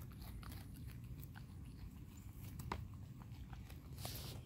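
Goat kid nibbling grass: faint, scattered crunches and clicks of biting and chewing, with a brief rustle about four seconds in.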